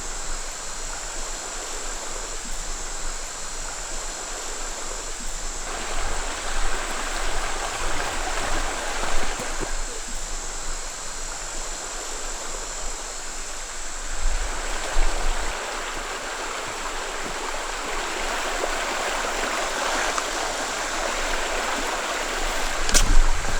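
Running water of a stream rushing steadily, swelling louder a few times.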